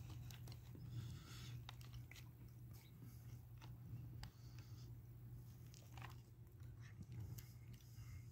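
Faint chewing of a mouthful of steak sub, with small scattered mouth clicks and smacks, over a steady low hum.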